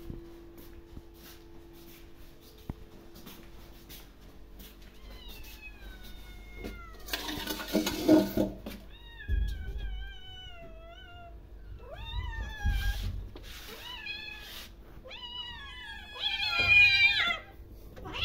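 Kittens meowing over and over as they beg for food held out by hand. The calls come in a run of rising-and-falling cries that grow louder, the loudest near the end, with a short scuffing noise around the middle.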